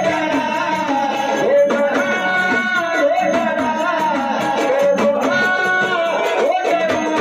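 Live Marathi gavlan folk song: a voice singing to a melody, with hand-drum accompaniment keeping a steady beat.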